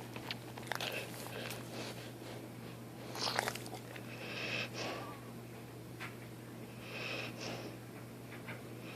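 Dog snoring in its sleep: wheezy breaths that swell and fade about every two to three seconds.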